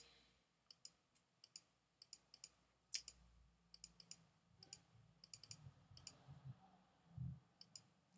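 Faint computer mouse clicks, many of them in quick irregular runs and pairs, stepping a charting program's bar replay forward one candle at a time.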